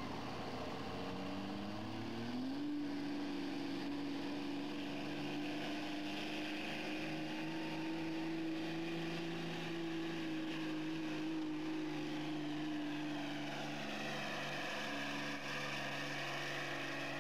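Diesel pickup truck engine at full throttle pulling a weight-transfer sled. It revs up over the first two seconds or so, then holds a steady high-rev note under load, dropping slightly in pitch later in the pull.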